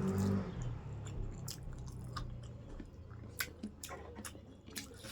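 A person chewing food close to the microphone, with scattered irregular clicks of the mouth and food.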